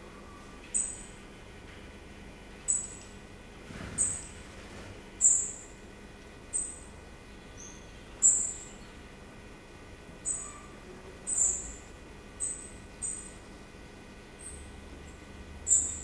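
Small songbird at its nest giving about a dozen short, thin, high-pitched calls, each dipping slightly in pitch, one every second or so. There is a soft rustle of movement about four seconds in.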